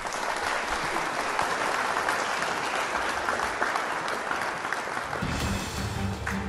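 Audience applauding, a dense steady clapping. About five seconds in, music with steady low notes starts under it.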